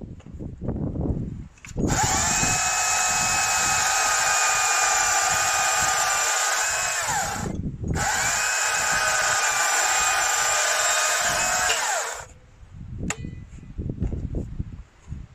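STIHL MSA 200 C battery chainsaw running flat out in two long steady runs, about five and four seconds, with a brief let-off of the trigger between them, cutting through a firewood log. Its electric motor gives a steady whine that sags a little just before each run stops. A few light knocks follow.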